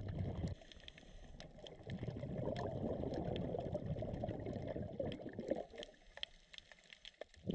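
Underwater scuba sound: a diver's exhaled bubbles burbling from the regulator, briefly at the start and then for about three and a half seconds from about two seconds in. Scattered sharp clicks from the reef run underneath.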